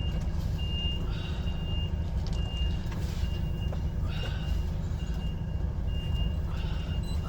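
HGV diesel engine running at low revs while the lorry's reversing alarm beeps a single high tone, about once every 0.8 seconds.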